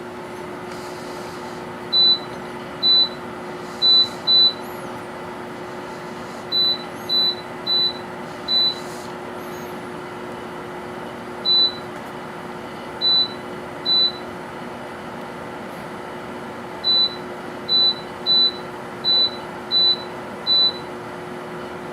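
Dehumidifier running with a steady low hum, its compressor quiet. Over it come about seventeen short, high electronic beeps in irregular clusters.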